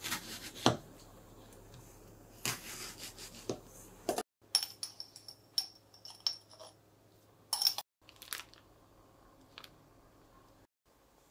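Kitchen knife cutting into a new onion, the blade knocking on the plastic cutting board, with the sharpest knock about a second in. Then a run of small metal clinks with a high ring, a spoon against the rice cooker's inner pot, followed by a few faint clicks.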